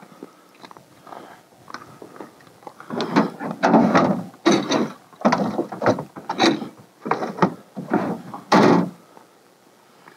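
An English setter climbing into a wooden dog box in the back of a truck while the box's door is handled and shut: a run of wooden bumps and scrapes from about three seconds in until near the end.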